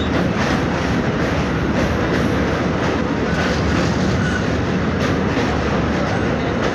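Passenger train running over a steel truss railway bridge, heard from a carriage window: the wheels on the rails make a steady, loud running noise with faint irregular clicks.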